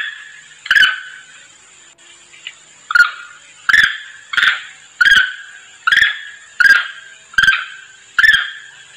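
Long-tailed macaque calls used as a lure, a monkey calling to others of its troop: short, sharp, shrill calls, each starting suddenly and dying away quickly. One comes early, then after a pause of about two seconds they repeat steadily, roughly one every three-quarters of a second.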